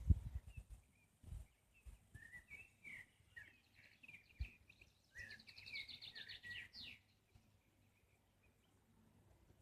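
A small songbird singing: a few scattered chirps, then a quicker twittering phrase about halfway through that ends on a rising note.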